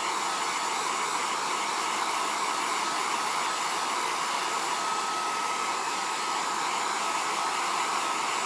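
Hair dryer running steadily: an even rush of blown air with a faint steady high whine.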